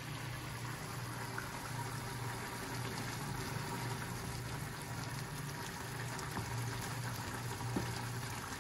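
Creamy beef curry simmering and bubbling in a frying pan as it is stirred with a wooden spoon, over a steady low hum.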